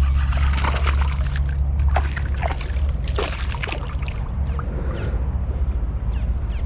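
Water sloshing and splashing against a kayak in short irregular strokes, busiest in the first few seconds, over a steady low rumble.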